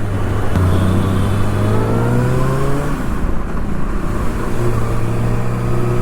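2024 Kawasaki ZX-6R's inline-four engine pulling gently, its pitch rising for a couple of seconds. It then drops back and holds a steady lower note.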